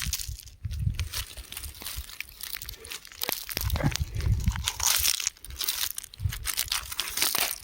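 Rocks crumbling, a dense run of small cracks and crunches with bursts of low rumble every second or so.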